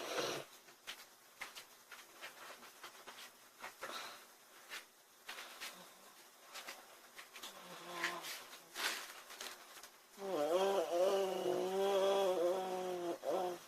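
A woman snoring: a short snore about eight seconds in, then a longer pitched one from about ten seconds that lasts some three seconds. Faint clicks fill the quieter stretch before.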